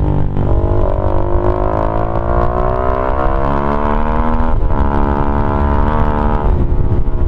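Keeway RKF 125's single-cylinder engine through a GPR Deeptone exhaust with the dB killer removed, pulling under acceleration: the revs climb for about four seconds, dip at an upshift, climb again, and fall back near the end.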